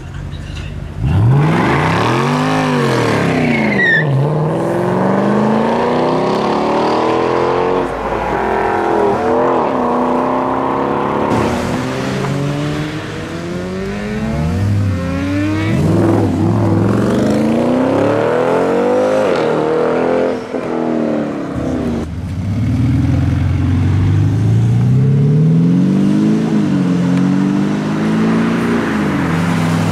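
Mercedes-AMG V8 cars, a CL63 coupé and an ML63 SUV among them, accelerating hard away one after another. Each engine note climbs and drops again and again as the cars rev up and change gear.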